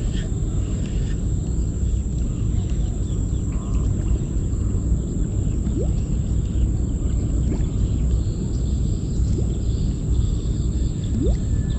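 Wind buffeting the microphone outdoors, a steady low rumble. A thin, steady high whine runs beneath it, and two brief rising chirps come about six seconds in and near the end.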